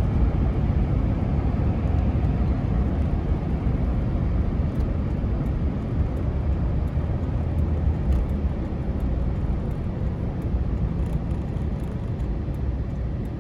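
Car driving along a road: a steady low rumble of road and engine noise that eases slightly near the end.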